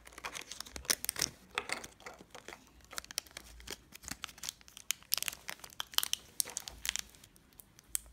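A thin plastic blind bag crinkling and tearing as it is pulled open by hand, with many irregular small crackles.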